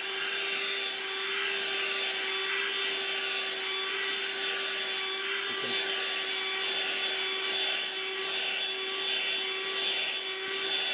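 Dirt Devil AccuCharge cordless hand vacuum running steadily with its crevice tool worked back and forth over carpet to lift rabbit hair, the motor holding one even note while the suction hiss swells and eases with each stroke.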